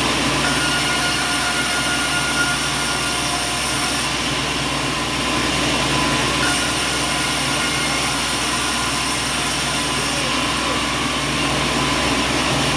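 Heavy machinery running steadily, with a high hiss that comes in for a few seconds twice.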